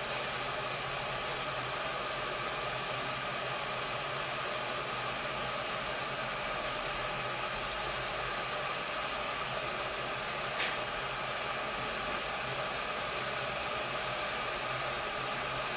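Hot-air rework station blowing a steady hiss of hot air, set to 260 °C, onto the solder of a phone motherboard's charging port; the high-temperature solder is not yet melting. A single light click about ten and a half seconds in.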